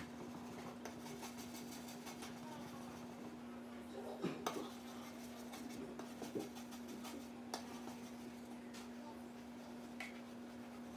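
A hand scraper rasping against aquarium glass in quick repeated strokes, scraping off hard-water scale. There are a few louder knocks of the scraper on the glass partway through, all over a steady low hum.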